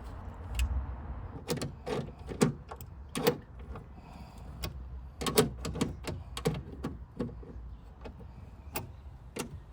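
About a dozen irregular clicks and knocks from parts being handled at an opened car door.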